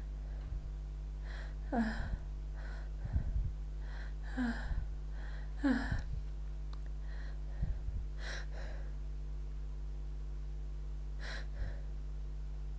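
A person's sharp, gasping in-breaths with short voiced catches, five or so spread over the stretch: the build-up of sneezes being held back and stifled.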